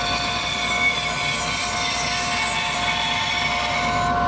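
Bandsaw with a 3/16-inch, 10-teeth-per-inch blade running and cutting through a wooden block: a steady whine over the rasp of the blade in the wood.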